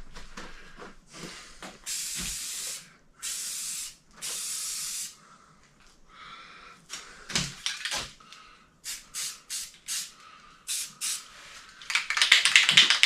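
Aerosol can of Rust-Oleum trim and bumper paint spraying in three short bursts, misting a light coat, followed by scattered clicks and knocks and a rapid clatter near the end.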